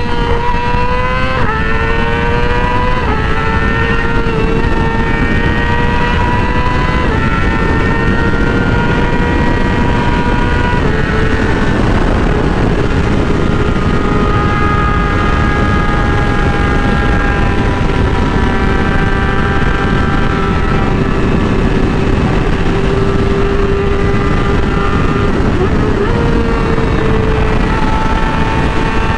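Yamaha R6 inline-four engine pulling hard through several upshifts, its note climbing and dropping at each shift over the first ten seconds or so, then holding a steady, slowly sinking note as the bike cruises, with a jump in pitch near the end. A heavy rush of wind and road noise runs underneath.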